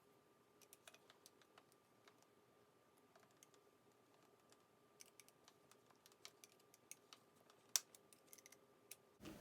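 Faint, scattered small clicks and taps from small plastic and metal parts being handled and adjusted, with one sharper click near the end, over near-silent room tone with a faint steady hum.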